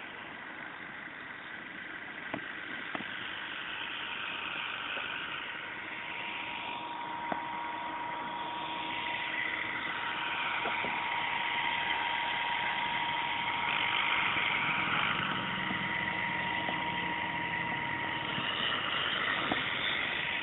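Ikarus Eco 7 electric RC model helicopter hovering. Its motor and gears give a steady high whine under whooshing rotor noise that swells and fades, somewhat louder in the second half.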